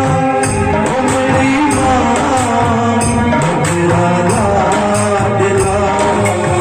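Music with a steady percussion beat under sustained tones and a melody line.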